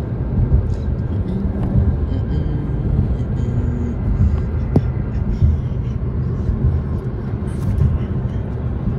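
Steady low rumble of road and tyre noise heard inside a moving car's cabin.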